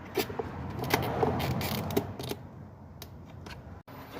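Scattered light clicks and knocks of the fuel pump assembly's plastic parts being handled as its retaining tabs are pressed in to slide a piece off.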